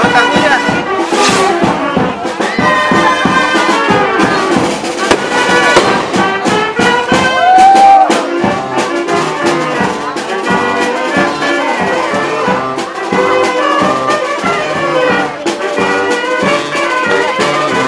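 Brass band music: trumpets and trombones playing a tune over a steady beat.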